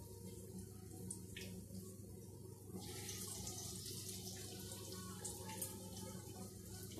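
Besan-battered banana-flower chops (mochar chop) deep-frying in hot oil in a kadai: a steady sizzling hiss with small crackles as the fresh batter fries. The sizzle grows louder about three seconds in, as another chop goes into the oil.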